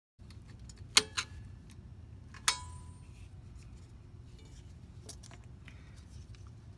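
A screwdriver and fingers working the parking-brake shoe star-wheel adjuster inside a 2005 Subaru Legacy's rear drum-in-hat brake. Two sharp, ringing metal clinks come about a second and two and a half seconds in, then light scattered ticks, over a low steady hum.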